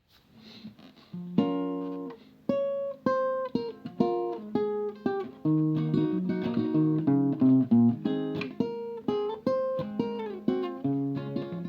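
Acoustic guitar playing a picked melody over bass notes, each note struck and ringing away, entering faintly and becoming full about a second in.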